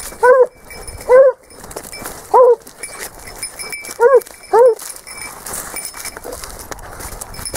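Sabueso Español hound giving tongue on a wild boar scent trail: five short, loud yelping barks, each rising and falling in pitch, spaced unevenly with the last two close together.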